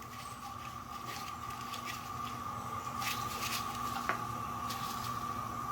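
Faint scratchy ticks and rubbing of a threaded rod being screwed by hand into the internal threads of a power steering pump shaft, with one sharper click about four seconds in, over a steady high hum.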